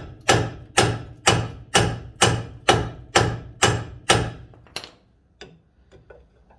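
Hammer blows on the steel front suspension knuckle to shock the Subaru Impreza's lower ball joint loose, about two strikes a second with a metallic ring, ten in a row. A few lighter knocks follow near the end.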